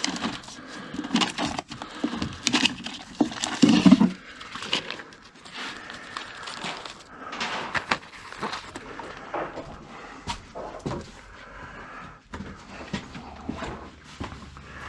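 Records being handled and sorted by hand: paper sleeves rustling and discs and cardboard knocking and scraping in irregular clicks, loudest about four seconds in.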